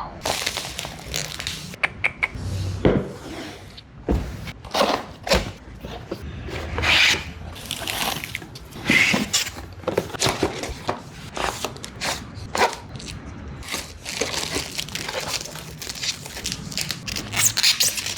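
A speaker box and its packaging being opened and handled, with irregular rustling, scraping and clicking of cardboard and plastic.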